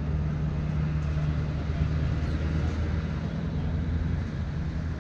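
Hitachi 890 excavator's diesel engine running steadily with a low hum.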